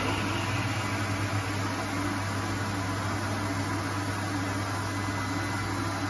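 Table saw running steadily with a low hum and a rushing noise, its blade spinning freely with no wood being cut.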